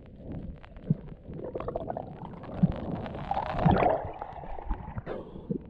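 Muffled gurgling and scattered knocks of water heard through a submerged camera, with a louder sloshing swell about three to four seconds in as the camera comes up to the surface.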